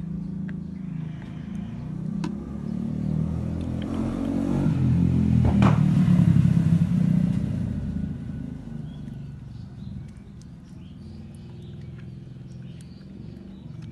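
A motor vehicle passing by: a low engine and road rumble builds to its loudest about six seconds in, then fades away.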